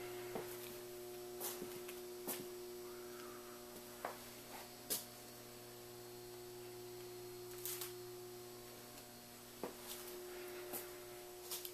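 Faint, steady electrical mains hum, with scattered light clicks and taps.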